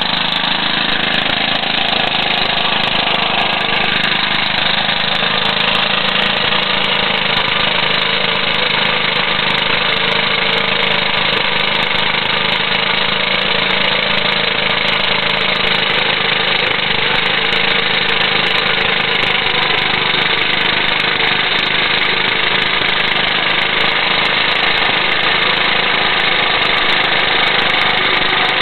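JAP Model 2A 98cc single-cylinder petrol engine, air-cooled by a flywheel fan, running steadily at a constant speed.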